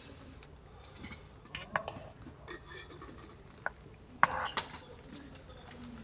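Camp cookware and utensils clinking and knocking in short, scattered taps, with a louder clatter about four seconds in.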